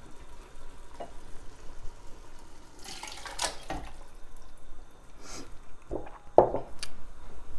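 Tinned whole peeled tomatoes and their juice poured from a glass bowl into a stainless steel stockpot: wet plops and splashes in a few bursts, with a sharp knock near the end.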